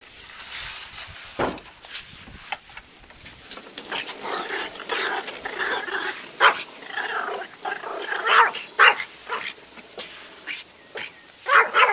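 Small dog barking repeatedly in short, sharp yaps, the loudest barks coming in the second half.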